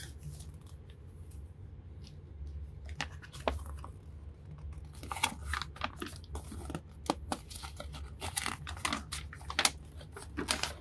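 Folded paper game mat being unfolded by hand: stiff creased paper crackling and rustling, the crackles coming thicker in the second half.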